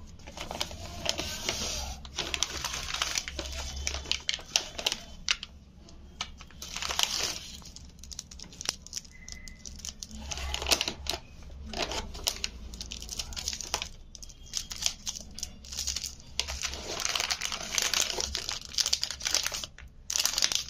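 Plastic and foil candy wrappers crinkling and rustling in irregular bursts as hands pick up and handle wrapped chocolate bars and sweets.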